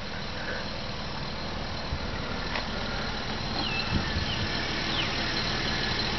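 A 2001 Nissan Pathfinder's 3.5-litre V6 idling steadily, heard from outside the vehicle. A few short high chirps sound over it near the middle.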